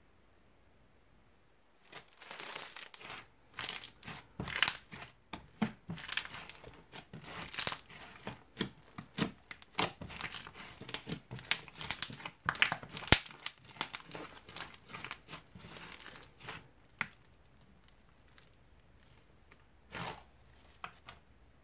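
Crunchy slime with small beads mixed through it, being stretched, poked and pressed by hand: a dense run of crackling, popping clicks that starts about two seconds in and thins out near the end, with one last short burst.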